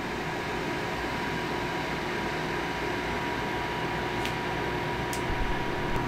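Lasko ceramic tower space heater running on high heat and high fan: a steady airy whoosh with a faint even whine, measuring only about 48 decibels, very quiet for a space heater. Two faint ticks sound near the end.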